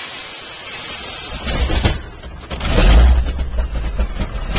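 Wilga's Ivchenko AI-14 nine-cylinder radial engine being started: a steady hiss of the compressed-air starter for about a second, then the engine turns over, catches loudly about three seconds in and runs unevenly as it comes to life.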